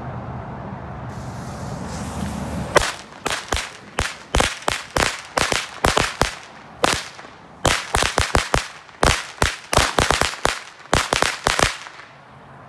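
A 50-pack string of Ghost brand (Red Apple) firecrackers. The fuse hisses for about two seconds, then the crackers go off in a fast, irregular string of sharp bangs that lasts about nine seconds and stops shortly before the end.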